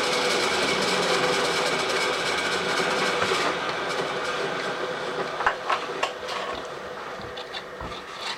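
Power saw cutting metal, running steadily and then quieting gradually through the second half as the cut finishes, with a few light clicks near the end.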